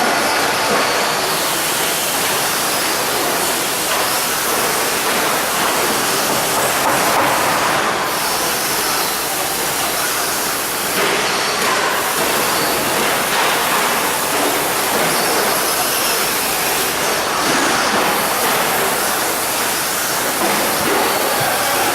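Electric 2WD short course RC trucks racing on a dirt track: a loud, steady hiss of motors and tyres that rises and falls only slightly.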